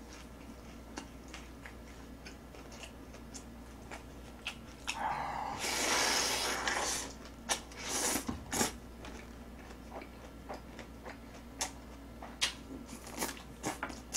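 Close-miked eating: wet chewing and crunching of shredded cabbage salad with many short mouth clicks. Around the middle there is a loud slurp of jjapaghetti noodles lasting about two seconds, with a few shorter slurps just after.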